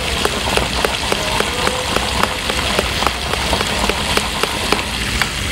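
Lentil-batter fritters (dahi bade) deep-frying in hot oil in a wok: a steady sizzle with many small crackling pops.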